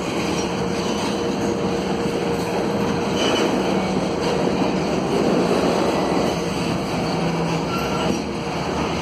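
Freight train of covered hopper wagons rolling past, a steady rumble of wheels on the rails.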